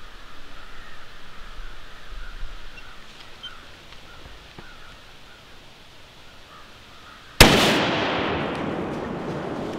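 A single close gunshot about seven seconds in, sharp and loud, followed by its echo fading through the woods over the next two seconds.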